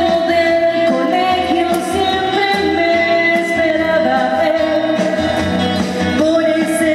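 A woman singing live into a microphone over instrumental accompaniment, holding long notes.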